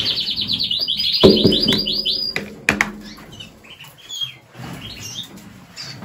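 Canary song: a rapid trill of quickly repeated high notes, breaking into a second, higher trill phrase about a second in, then a few short scattered chirps. A knock sounds about a second in and sharp clicks follow near the middle.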